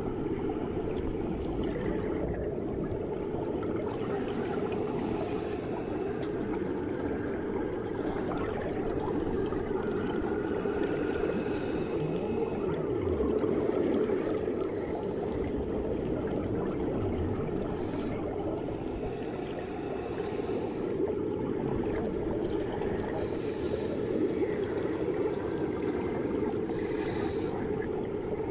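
Underwater ambience in a swimming pool, as heard with the ears under water: a steady, muffled low rushing of water, with faint scattered higher ticks.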